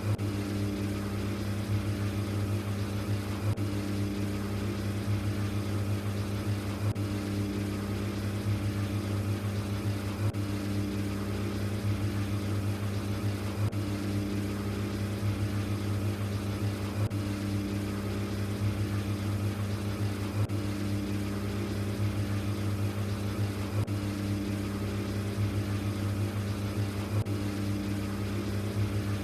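LG ThinQ washing machine running mid-cycle: a steady motor hum, with a swell in the sound about every three and a half seconds as the drum turns.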